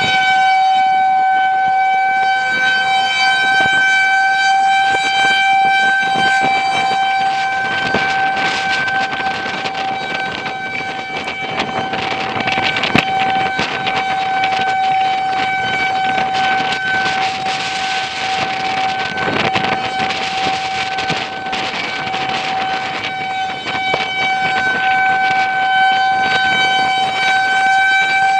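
Federal Signal 2001-130 outdoor warning siren sounding a steady single tone during a test. The tone weakens through the middle and comes back strong near the end, with wind buffeting the microphone.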